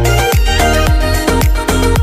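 Background dance music with a steady, fast beat and a pounding bass.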